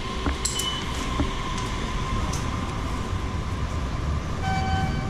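Railway station concourse ambience: a steady low rumble with a faint hum. A short high electronic beep from the automatic ticket gates comes about half a second in, and a steady electronic tone sounds near the end.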